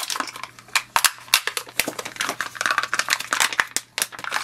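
Clear plastic seal being peeled by hand off a Canon colour ink cartridge, crinkling with many quick sharp clicks and crackles.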